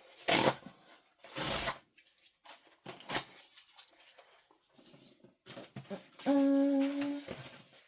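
Paper and cardboard packaging of a subscription box being handled and opened: two short rustling bursts, then a few light clicks and taps. About six seconds in comes a steady humming note lasting about a second.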